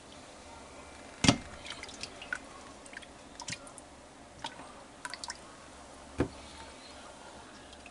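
Cooked pot roast and potatoes being dished out of an Instant Pot: wet squishing and dripping with light clicks, and two louder knocks, one about a second in and one late.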